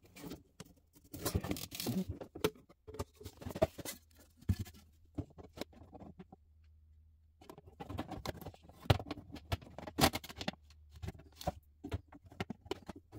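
White plastic panels of a model shipping-container display case handled and fitted together by hand: irregular light clicks, knocks and scrapes, with a short pause about halfway through.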